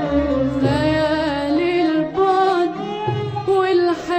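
Arabic classical tarab music from a live concert performance: a melody line that slides and bends between notes, over low accompaniment.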